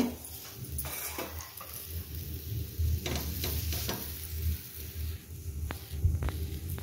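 Stuffed flatbread being handled and turned on a hot tawa over a gas burner. There is a sharp knock at the start, then light taps and scrapes, over a faint steady sizzle.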